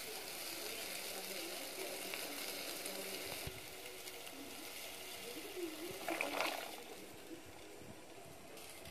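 Water boiling hard in a pot, a steady bubbling hiss that softens a little partway through; about six seconds in, a short splash as macaroni is tipped into the boiling water.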